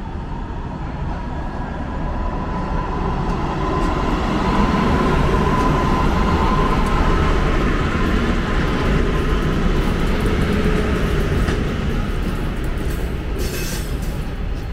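Škoda-built ChS7 electric locomotive passing close by as it pulls a passenger train in, with its noise building to loudest about four seconds in and a thin steady whine running through it. The coaches then roll past, with a few clatters near the end.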